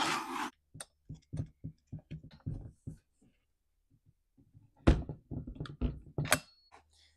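Clicks, knocks and a brief scrape from a Stihl MS211 chainsaw and hand tools being handled on a workbench while its spark plug is threaded back in with a T-handle wrench. The loudest are a knock about five seconds in and a sharp click a little after six seconds.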